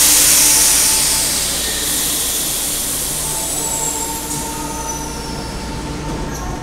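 Stationary Kyoto Municipal Subway Tozai Line train letting out a loud, sudden hiss of compressed air that fades slowly over several seconds. Near the end, the train and platform screen doors close with short knocks.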